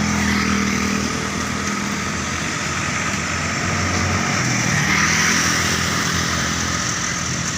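Tour bus's diesel engine running at low speed, a steady low rumble with road and engine noise over it. It grows slightly louder about five seconds in. No telolet horn sounds.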